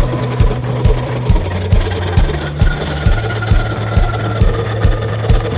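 Background music with a steady beat and bass line.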